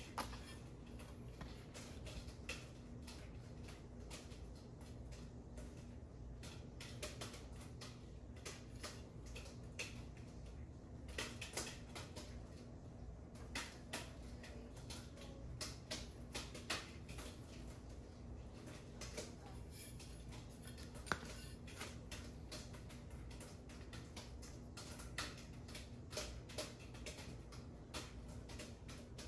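Faint handling noise: scattered soft clicks and rustles as a bike handlebar and its cardboard packaging card are turned over in the hands, over a steady low hum.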